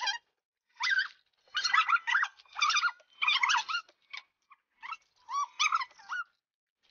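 High-pitched whining calls from an unseen animal, repeated in short bunches that rise and fall in pitch, with brief gaps between them.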